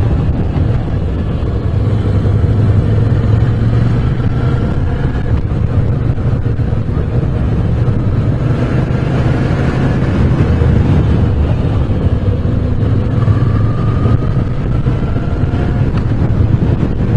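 Moto Guzzi V7 Special's air-cooled transverse V-twin running on the move, its pitch climbing three times as it accelerates, with wind noise on the microphone.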